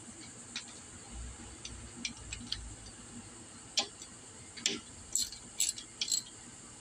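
Socket wrench clicking as the 10 mm bolt of a GY6 scooter engine's cam chain tensioner spring cap is tightened. Scattered sharp clicks that come closer together and louder in the second half.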